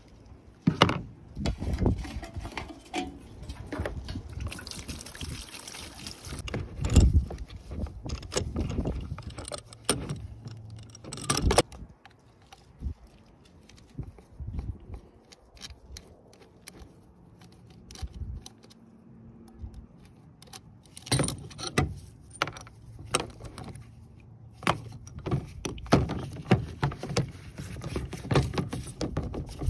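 Metal hand tools and a roller frame clinking and knocking against each other and a plastic tub as they are cleaned in acetone: irregular clicks and knocks, with a quieter stretch in the middle.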